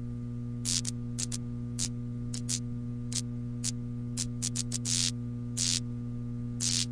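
Steady electrical hum of a neon sign, with irregular crackles of static as it sputters, including a quick run of crackles about four to five seconds in.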